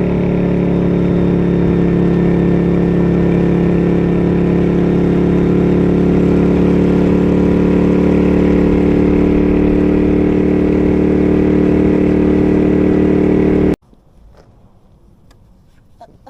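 Moto Guzzi Griso's transverse V-twin engine running at a steady, unchanging pitch, as when cruising at constant speed. It cuts off abruptly near the end, leaving only faint background sound.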